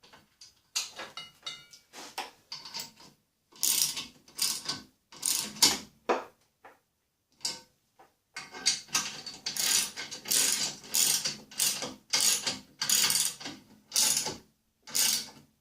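Hand ratchet wrench clicking through repeated back-and-forth strokes while tightening bolts. The strokes are irregular at first, then settle into a steady run of about two a second in the second half.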